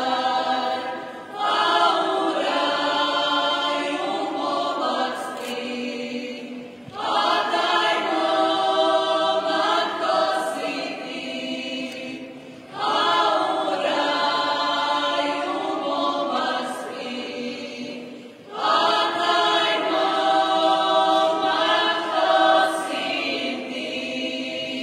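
Croatian folk group singing a cappella, several voices together in long phrases about six seconds each. Each phrase starts loudly after a short break.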